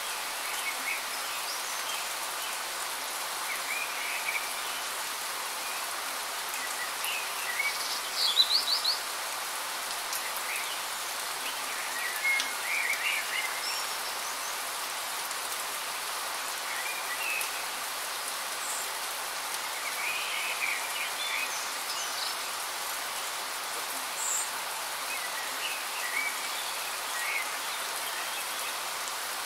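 Steady rain falling, an even hiss, with short chirping calls scattered through it. The loudest is a quick run of high chirps about eight seconds in.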